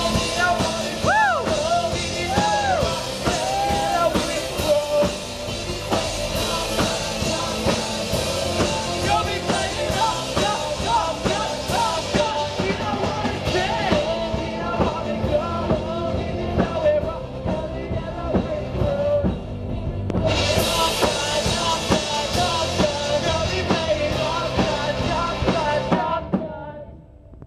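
Live rock band playing an up-tempo song with a singer, electric guitar and drum kit through a PA. The song ends and the music stops near the end.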